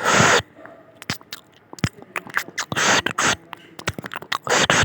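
A person eating close to the microphone: wet chewing and smacking clicks, with three short hissing rushes of noise.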